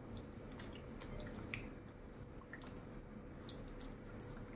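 Faint wet squelching and smacking: a bare hand squeezing and kneading chicken pieces in a thick yogurt-and-spice marinade in a glass bowl, in irregular small squishes.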